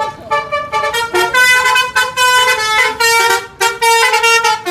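Bus telolet horn of the Basuri "pianika" multi-tone type playing a quick melody: a run of short, changing notes with a few longer held ones.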